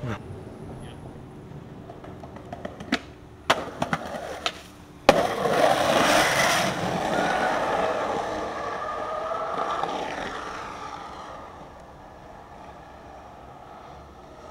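Skateboard on street pavement: a few sharp clacks of the board, then a loud hit about five seconds in followed by the wheels rolling over the asphalt, slowly fading out.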